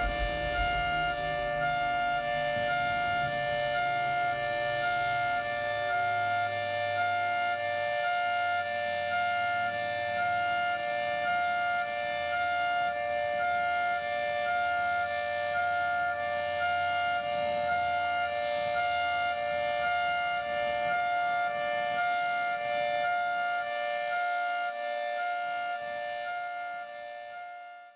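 Background music of steady held tones, with a higher note pulsing a little more than once a second, fading out near the end.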